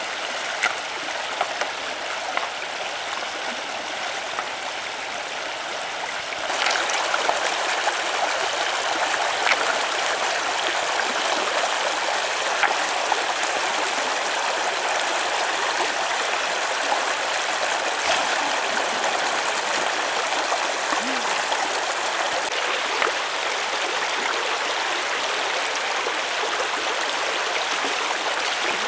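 Shallow stream water flowing steadily over stones, louder from about six seconds in, with a few small splashes and knocks of stones as hands work in the water.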